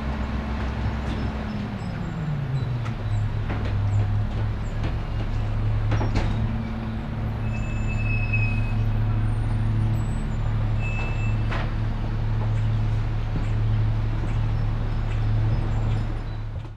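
Garbage truck engine running, its pitch dropping as the revs fall a couple of seconds in, then holding a steady low drone. Two sharp knocks stand out, one in the middle and one later, with a few brief high squeaks between them.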